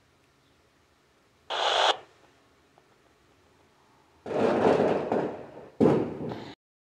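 Yaesu FT-60 handheld transceiver, tuned to a UHF satcom channel near 255.55 MHz, giving out bursts of noisy static through its speaker. It is near silent at first. About a second and a half in comes one short burst, then two longer bursts near the end, each cutting off abruptly.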